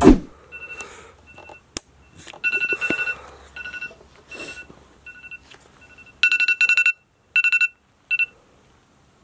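Electronic beeping at one fixed pitch: single short beeps at uneven intervals, then rapid trains of beeps in the last few seconds, with faint rustling and a single sharp click between.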